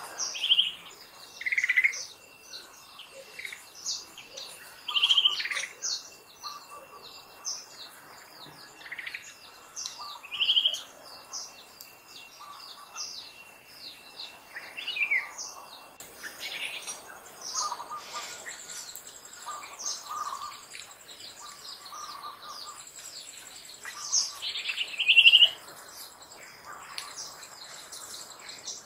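Birds chirping and calling over and over, the loudest calls short falling chirps at intervals of several seconds, over a thin steady high whine.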